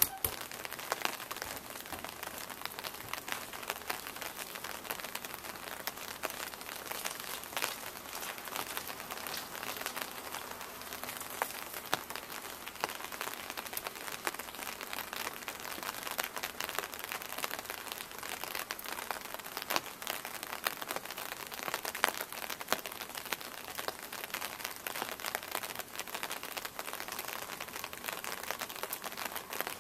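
Steady rain falling, a dense crackle of many small drop hits with no let-up.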